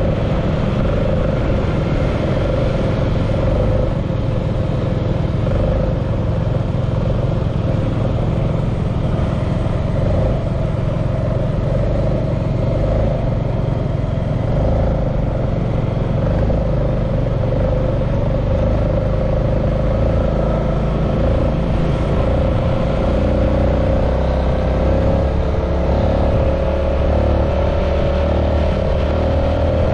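Motorcycle engine running steadily at cruising speed, with wind and road rumble heard from on the moving bike.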